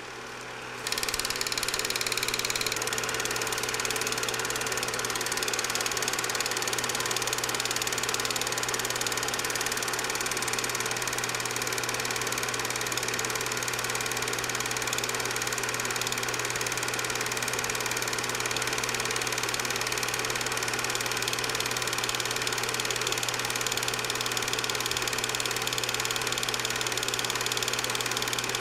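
8mm movie projector running: a steady mechanical hum and whir from its motor and fan, coming up to full level about a second in and holding unchanged.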